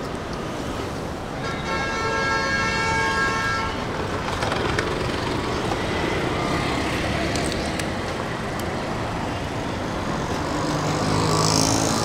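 Street traffic noise, with a vehicle horn sounding once for about two seconds a couple of seconds in.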